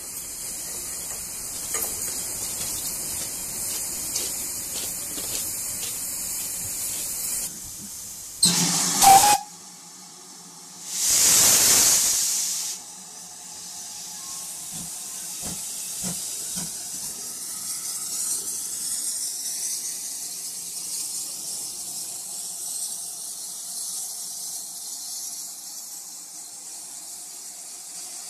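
GWR 56xx class 0-6-2 tank steam locomotive standing with steam hissing steadily. About eight seconds in there is a brief, very loud blast, and at about eleven seconds a loud rush of escaping steam lasts nearly two seconds before the hiss settles back.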